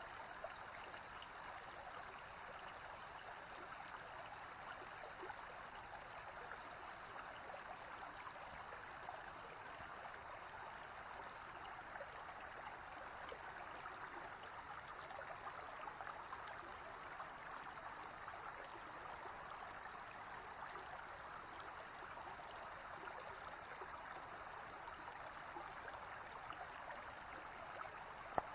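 Shallow rocky creek babbling over stones, a steady trickling rush of water. A single sharp click comes near the end.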